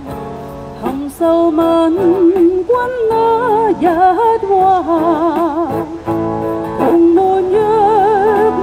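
Background music: a singer holding long notes with a wide vibrato over steady instrumental accompaniment.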